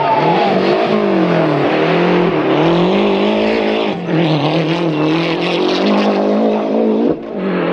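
Lancia Delta Integrale rally car's turbocharged four-cylinder engine revving hard at full attack, its pitch rising and falling again and again through gear changes. The sound breaks briefly about four seconds in and again near the end.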